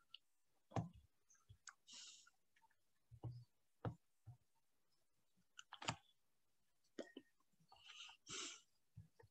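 Faint, scattered computer mouse clicks, about a dozen irregular ones, with two soft hisses, one about two seconds in and one near the end.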